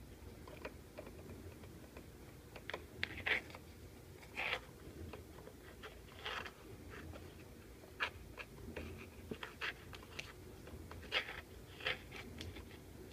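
A kitten playing with a cable on a laminate floor: irregular light clicks, taps and short scratchy scrapes as it bats and mouths the cable and its claws and body move on the floor.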